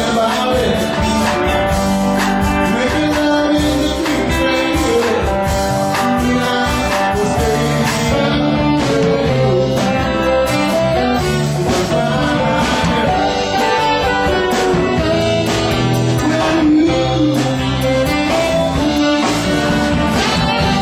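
Live band playing loud amplified music, led by electric guitar over bass and keyboard.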